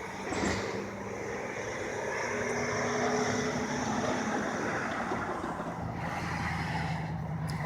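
A motor vehicle running nearby: a steady hum and rush that swells a little about three seconds in.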